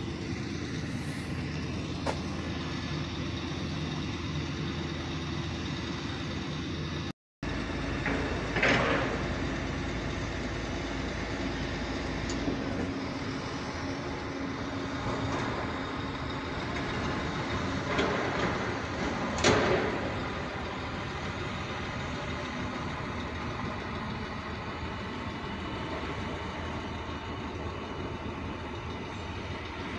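Diesel engines of tracked demolition excavators running steadily, with a few short, sharp crashes of brick rubble being broken and dropped, clustered near the middle. The sound cuts out for a moment about seven seconds in.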